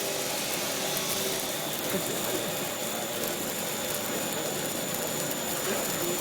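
Snack-food production machinery running: a steady mechanical hum and hiss with a thin, constant high whine.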